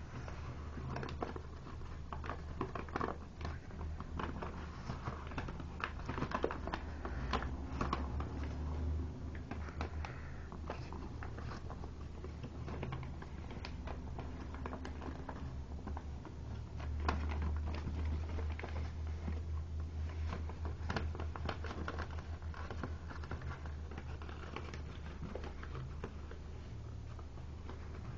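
A sheet of origami paper being handled and folded by hand, with irregular light rustles, crinkles and small taps as a flap is worked in over a crease line. A steady low hum runs underneath.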